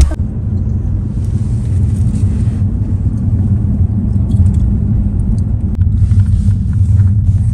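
An Audi car driving at speed, heard from inside the cabin as a steady low rumble of road and engine noise. There is a brief sharp click right at the start.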